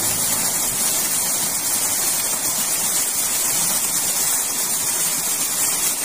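Water steadily pouring and splashing over limestone rocks at a small waterfall, a constant hiss with no change in level.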